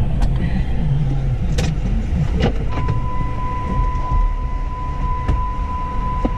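Inside a pickup truck's cab: a few sharp clicks of the seatbelt unlatching and the door opening, then a steady high electronic warning tone from the dashboard starts a little under halfway through and holds, over a low steady rumble.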